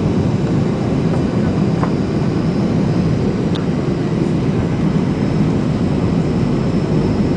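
Cabin noise inside a Boeing 737-800 in flight: a steady roar of jet engines and airflow, heaviest in the low end, with a faint steady high whine over it.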